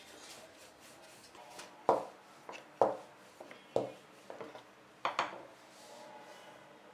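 Wooden kitchen utensils knocking on a board during roti making: about five sharp knocks over a few seconds, the last two close together.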